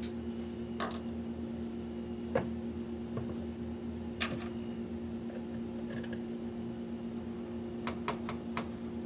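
A few light clicks and taps of a measuring spoon and a cream carton being handled over a mixing bowl on a kitchen counter, with a quick cluster of clicks near the end, over a steady low hum.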